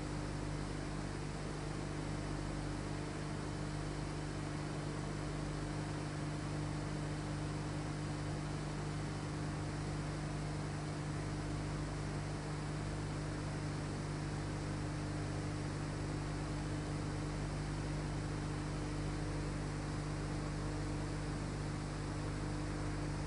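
Steady hiss with a constant low electrical hum and nothing else: the background noise of an old film or tape transfer with no recorded sound.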